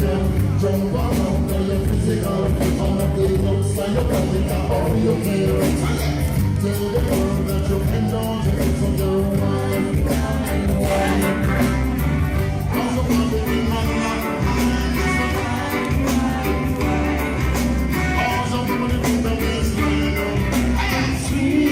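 Live reggae band playing with a singer, over a strong bass line and a steady beat.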